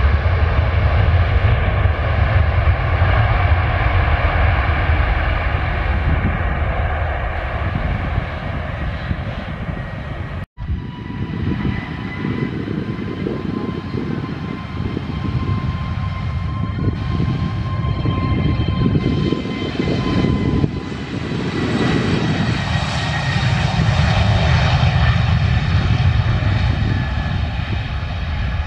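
A Boeing 737's jet engines running loud and deep on its landing roll, breaking off abruptly about a third of the way in. Then an Airbus A320neo's CFM LEAP-1A engines run with a steady high whine and rise to take-off power about two thirds through as it accelerates down the runway.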